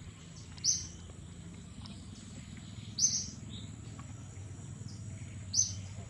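A bird calling with a short, high chirp, three times at even intervals about two and a half seconds apart, over a steady high-pitched insect drone.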